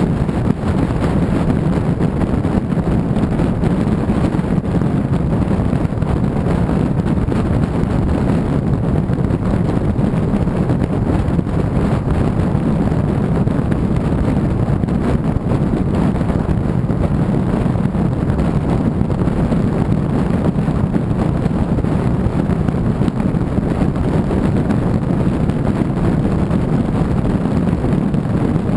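A car driving steadily at road speed, with wind on the microphone and low tyre and engine noise that holds steady throughout.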